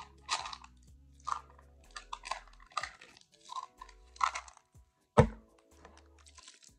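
A white plastic hair-vitamin bottle and its cap being handled by hand: a series of short rustling clicks, with one sharp knock about five seconds in.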